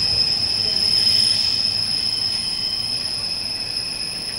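NJ Transit commuter train passing along the platform track, its wheels giving a high, steady squeal over the noise of the moving cars. Loudest about a second in, then slowly fading as the train moves away.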